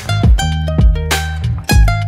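Background music: plucked guitar over a bass line, with a steady beat.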